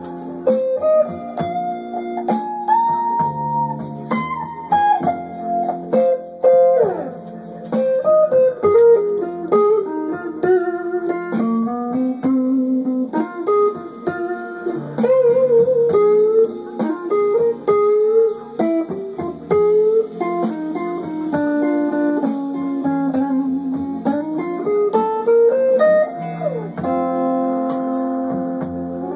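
Les Paul-style electric guitar playing a slow blues lead: single-note phrases with string bends and vibrato on held notes, a slide down a few seconds in, and a quicker run of notes near the end.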